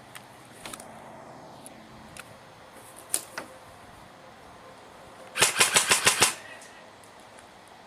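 An airsoft gun firing: a single shot about three seconds in, then a rapid full-auto burst of about seven shots in under a second.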